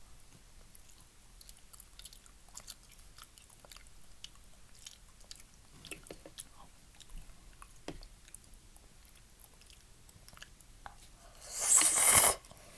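Close-miked mouth sounds of someone eating udon noodle soup: quiet chewing with scattered small wet clicks. Near the end comes a much louder airy rush lasting about a second.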